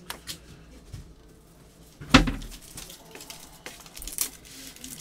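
Foil trading-card pack wrappers crinkling and cards being handled, with scattered small clicks and a single thump about two seconds in.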